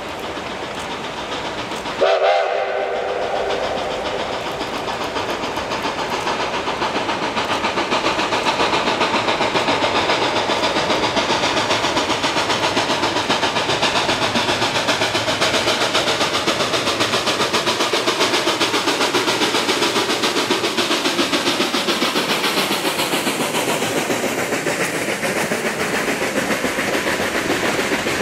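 A narrow-gauge K-28 steam locomotive sounds a short chime whistle blast about two seconds in, then works past hard, its exhaust chuffing steadily and growing louder as it nears. Near the end the passenger cars roll by with a clickety-clack of wheels on rail joints.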